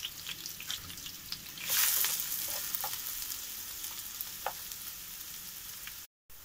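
Diced onions sizzling and crackling in hot oil and butter in a frying pan as they are stirred with a wooden spatula. The sizzle swells about two seconds in, then slowly eases, and the sound cuts out briefly near the end.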